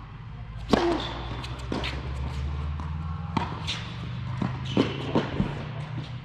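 Tennis rally on a hard indoor court: a sharp racket strike on the serve about a second in, the loudest sound, then the ball's bounces and return shots knocking back and forth several times, echoing in the hall. A steady low hum runs underneath.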